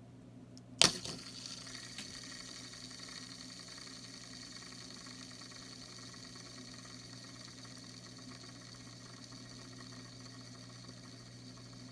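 A light-up fidget spinner flicked by a finger with a sharp click about a second in, then its bearing whirring steadily as it spins freely, with a thin high ringing tone in the whir.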